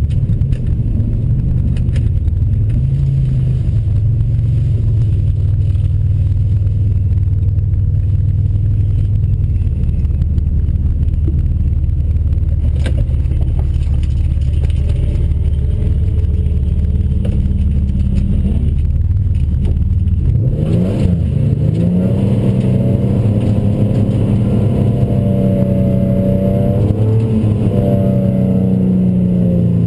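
Turbocharged 2007 Ford Mustang V6 running with a loud, deep drone. About twenty seconds in, its pitch climbs and it holds steady at higher revs.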